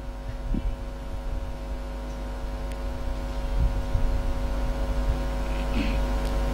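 Steady electrical mains hum over a low rumble, slowly growing louder. A faint short sound comes about six seconds in.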